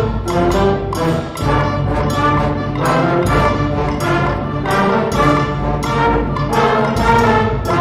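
A school concert band playing together, brass to the fore, with sustained chords on a steady pulse of accented beats, about two a second.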